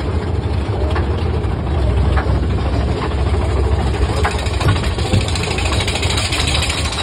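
Mine-train roller coaster cars running along the track, a heavy low rumble with noise over it, broken by a few sharp clacks and rattles from the train.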